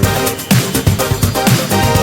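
Background electronic music with a steady beat, the soundtrack laid over the video.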